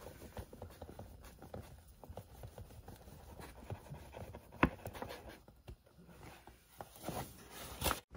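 Flour being added to a plastic container of raw chicken wings: soft rustling and scratching with light taps, and a sharper knock about four and a half seconds in and again near the end.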